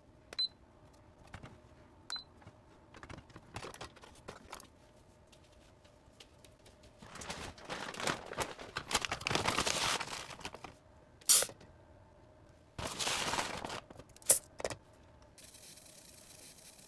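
Dry white rice poured into an Aroma rice cooker's nonstick inner pot, the grains rattling for a few seconds, with a shorter pour a little later. Two sharp clacks of the pot or lid being handled stand out between the pours.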